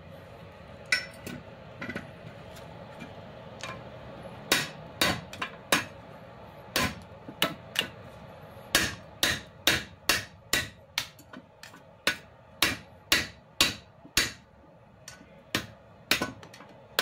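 Hammer blows on a long steel punch set in the bushing housing of a Honda Civic FD front lower control arm, working the old bushing out. A few sharp strikes, a pause of about two seconds, then a steady run of roughly two strikes a second.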